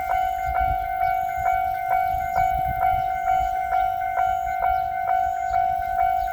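Japanese railroad crossing's electronic warning bell ringing its repeated "kan-kan" clang, about two strikes a second over a steady ringing tone. A low rumble runs underneath.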